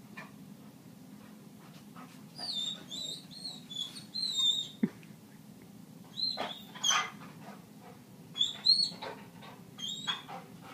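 Golden retriever whining in several bouts of high-pitched, wavering whimpers.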